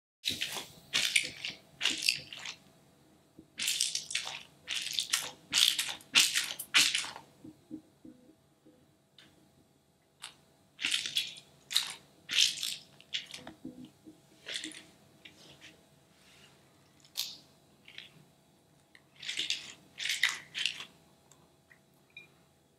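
Hands repeatedly squeezing a rubbery green spider-shaped stress ball, giving short squishing sounds in runs of several with pauses between.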